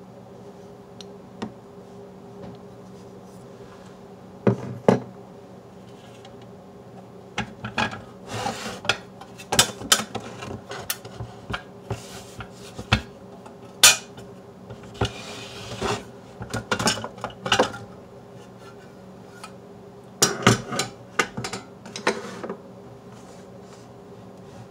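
Clicks, knocks and scraping of plastic and metal parts as a Super Technicolor 580 projector is handled and its housing taken off. They come in irregular bursts, busiest in the middle.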